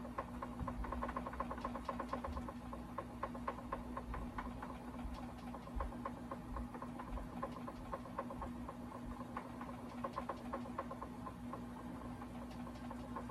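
Vibrating exercise plate running under a standing user: a steady motor hum with fast, irregular clicking and rattling.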